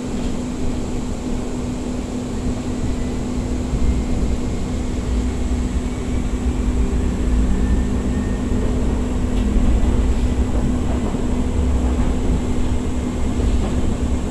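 Interior running noise of a Siemens S200 light rail car in motion: a steady low rumble of wheels on rail with a steady hum, getting a little louder about four seconds in.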